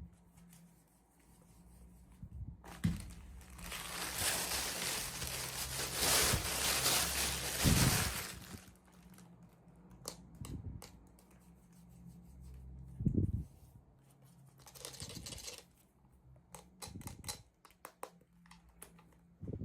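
Plastic toy packaging being torn open and crinkled by hand, with a long tearing rustle over several seconds and a shorter one later, among scattered clicks and taps of handling.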